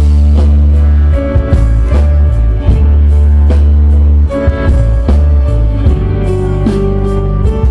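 Live rock band playing loudly through a PA, with a heavy booming bass, a steady drum beat, electric guitar and keyboard.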